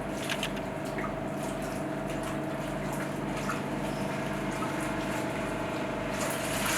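Water sloshing and splashing in a poultry scalder as a chicken carcass is dunked and swished by hand to loosen its feathers, over a steady machine hum. The splashing turns into a louder rush of water about six seconds in.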